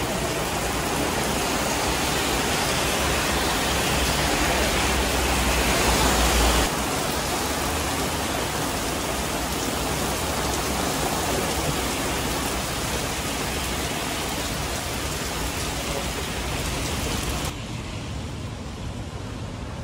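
Heavy rain pouring onto wet pavement, railings and trees: a dense, steady hiss that is loudest for the first six or seven seconds, then a little softer. Near the end it cuts to a quieter, duller street hush.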